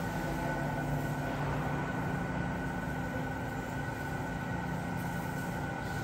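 Steady mechanical hum and rumble with a few constant tones running through it, unchanging throughout.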